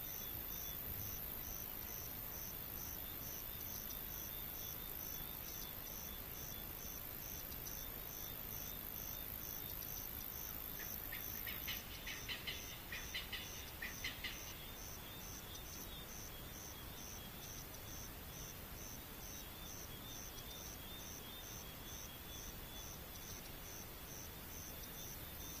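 Insects, crickets or similar, chirping in a steady high-pitched pulse about two to three times a second. About halfway through there is a brief run of short, sharp chirps.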